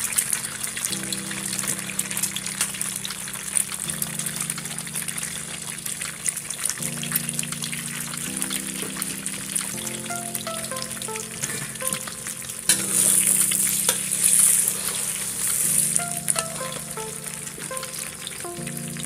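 Eggs sizzling as they fry in hot oil in a wok. The sizzle grows louder about two-thirds of the way through, and near the end a metal spatula stirs and scrapes them. Background music plays underneath.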